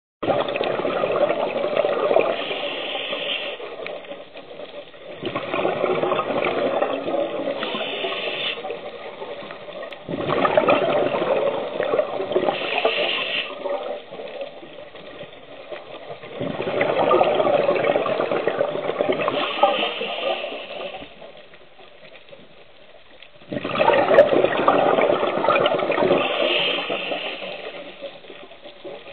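Scuba breathing through a regulator underwater: exhaled bubbles gush and burble in five long bursts, one every five to seven seconds, each with a brighter hiss partway through.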